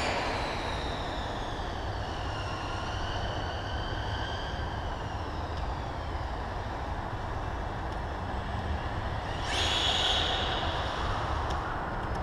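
Whine of RC car motors over a steady low rumble: a high whine falls in pitch and levels off over the first few seconds, and a louder whine comes in briefly near the end.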